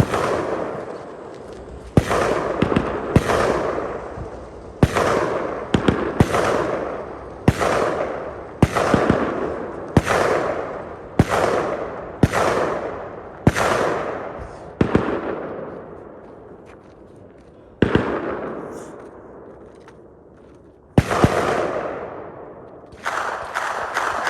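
Rifle shots fired one at a time, about a second apart, each sharp crack trailing off in a long echo; about seventeen shots, with longer pauses in the second half. A steady hiss starts near the end.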